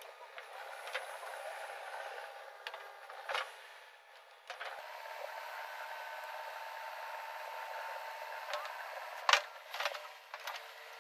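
JCB 3DX backhoe loader's diesel engine and hydraulics working as the rear bucket digs a trench, heard thin with no low end. A steady whine holds from about halfway, and several sharp knocks come near the end, the loudest about nine seconds in.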